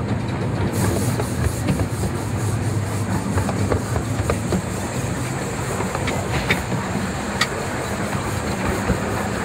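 Narrow-gauge steam train running, heard from an open passenger carriage: a steady rumble of the wheels on the track, with a few sharp clicks over the rail joints.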